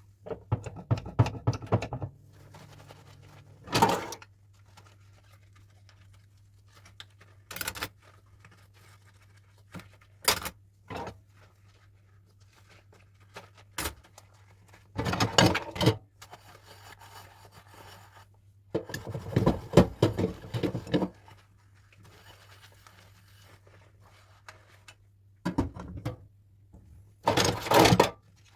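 Dishes and cutlery clinking, knocking and scraping against one another as they are handled and washed. The clatter comes in about ten separate bursts, some single knocks and some lasting one to two seconds. A low steady hum runs underneath.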